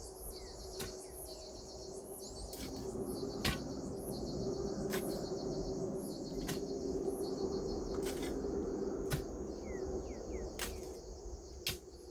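Steady high-pitched insect chorus of crickets or cicadas, with a few short bird chirps. Sharp knocks come roughly once a second.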